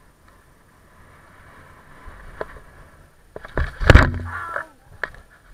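Mountain bike crash on a dirt trail: tyres rolling over dirt, then about three and a half seconds in a burst of heavy thuds and clatter as bike and rider tumble, with one more knock about a second later.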